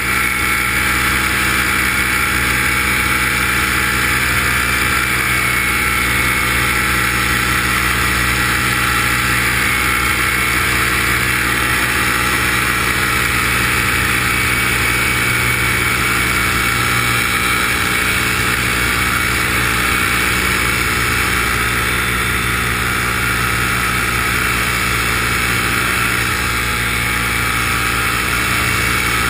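Steady, unbroken motor and propeller noise of the aircraft carrying the camera, held at one speed throughout.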